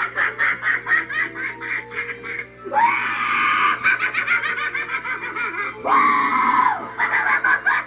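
Poor George clown animatronic playing its loud soundtrack: a rapid cackling laugh, about six pulses a second, over spooky music, broken by two long high-pitched shrieks that rise and fall, about three and six seconds in.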